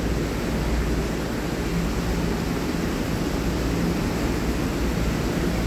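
Steady rushing background noise with a faint low hum underneath, with no distinct events.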